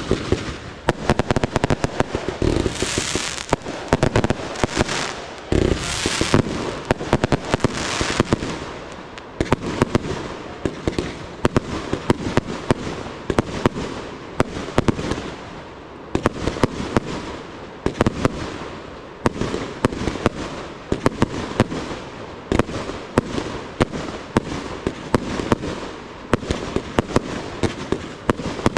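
Professional fireworks display: a dense, continuous barrage of aerial shell bangs, several a second, over the hiss of ground fountains, with the hiss surging loudest a few times in the first third.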